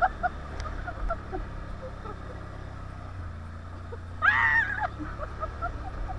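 A quad engine idles with a steady low rumble. About four seconds in comes a single loud, voice-like call lasting about half a second.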